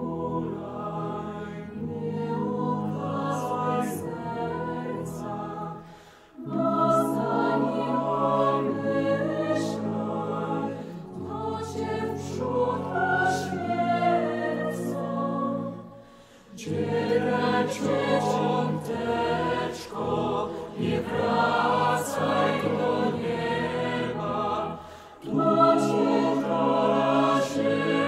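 Mixed chamber choir of men's and women's voices singing a choral piece in Polish, in held chords. Three phrases are broken by short pauses about six, sixteen and twenty-five seconds in.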